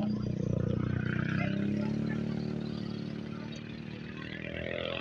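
A motor vehicle engine running past: a steady low hum that fades gradually over several seconds.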